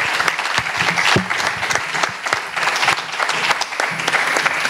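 Audience and people on stage applauding: many hands clapping in a steady run.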